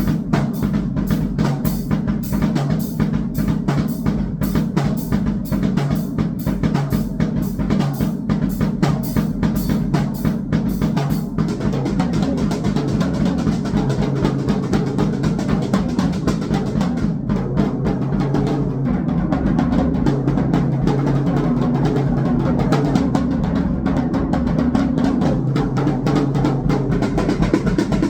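Electronic noise music with fast, dense drumming. The bright, crisp strokes drop out about eleven seconds in, leaving a thicker, churning low-pitched mass.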